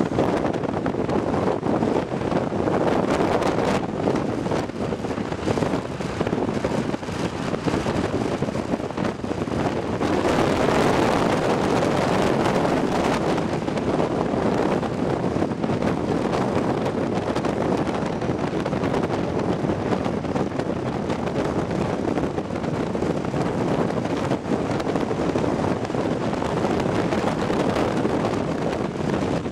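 Steady rush of wind on the microphone mixed with the running noise of a car driving along a road, growing louder and brighter about ten seconds in.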